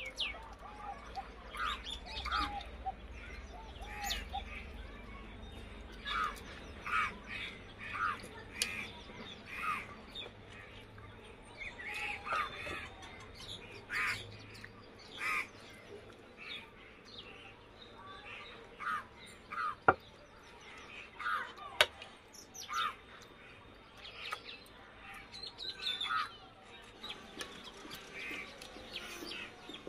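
Birds chirping and calling over and over, with two sharp clicks a couple of seconds apart past the middle.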